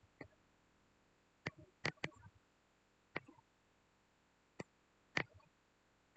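Faint, sharp clicks at irregular intervals, about seven in all, two of them close together about two seconds in.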